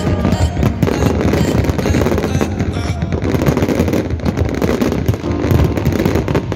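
Fireworks going off, many sharp bangs and pops in quick succession.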